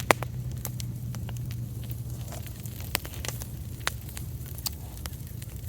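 Campfire crackling, with sharp irregular pops, the loudest just after the start, over a steady low rumble.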